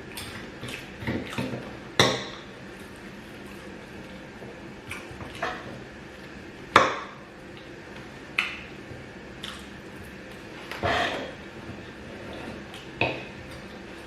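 Eating gari and beans: a utensil clinks sharply against the dish about half a dozen times, with soft, wet mouth and chewing sounds in between.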